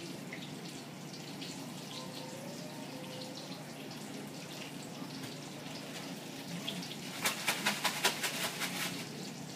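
Breaded food frying in a pan of oil, a steady sizzle. Roughly seven seconds in comes a quick run of sharp crackles or clicks lasting about two seconds.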